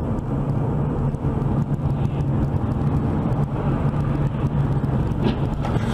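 Steady driving noise of a car heard from inside the cabin: a constant engine drone and tyre/road rumble picked up by a dashcam.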